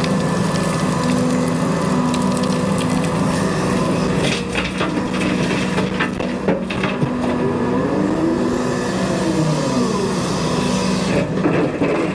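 Cat 335 excavator's diesel engine running steadily while its bucket works gravel, with crunching and scraping of stones from about four seconds in. A whine rises and falls once in the second half, and there is more clatter of gravel near the end.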